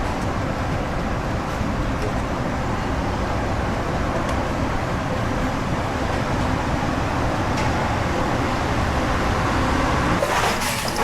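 Steady low rumble of a moving vehicle heard from inside its cabin.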